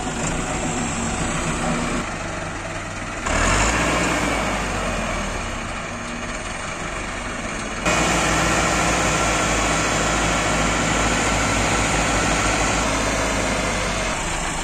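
Massey Ferguson 385 tractor's diesel engine running as it works a loaded tipping trolley. The sound steps up abruptly about three seconds in and again near eight seconds.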